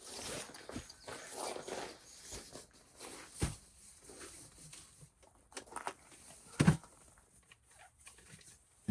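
Irregular rustling with scattered clicks and knocks, as of someone moving about and handling camp gear, with a sharp thump about three and a half seconds in and a louder one near seven seconds.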